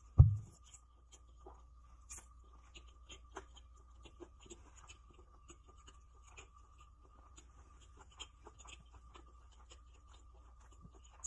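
A person chewing a mouthful of crispy fried chicken sandwich, with many small crackly clicks throughout. A loud low thump comes just at the start, and a faint steady hum runs underneath.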